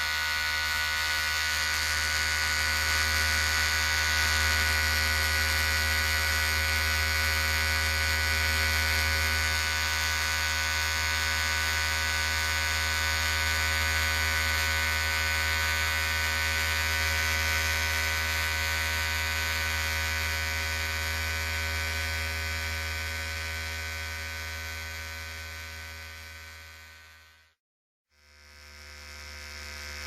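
Electric hair clipper running with a steady buzz. It fades out about three seconds before the end, goes silent for a moment, then fades back in.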